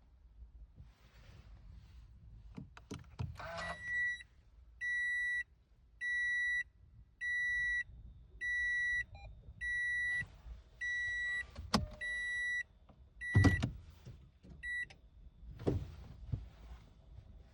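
Toyota Aqua (NHP10) in-cabin warning buzzer beeping steadily, about ten short single-pitch beeps a bit over a second apart. A couple of sharp clicks or knocks are heard near the end of the beeping.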